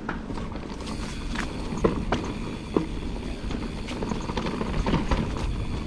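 Mountain bike riding down a rough dirt trail: a steady rumble of tyres and wind on the chest-mounted microphone, with scattered knocks and rattles from the bike going over bumps.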